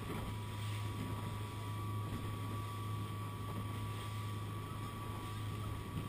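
Small motorboat underway at a steady speed: an even low engine hum with wind and water noise, plus a faint steady high whine.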